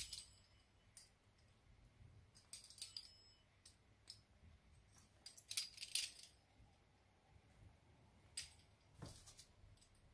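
A few faint metallic clinks and clicks in small clusters, from a steel pizza-cutter wheel cutting and being set to a sheet of dough on a plastic-covered table.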